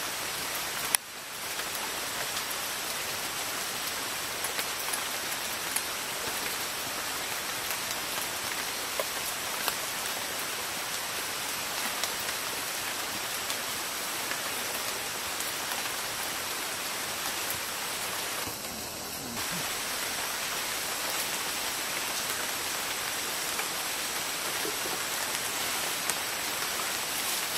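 Steady rain falling in rainforest, an even hiss with scattered small drip clicks.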